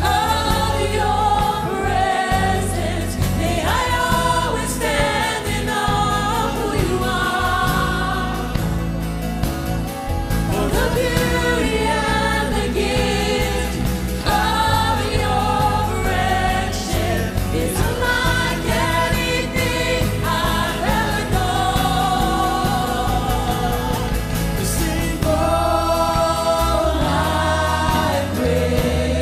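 Live worship band: several women singing a slow worship song together over acoustic guitar, bass guitar, keyboard and drums.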